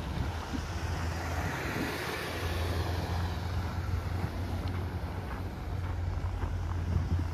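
Street traffic passing, with one vehicle swelling past about two seconds in, over a steady low rumble of wind on the microphone.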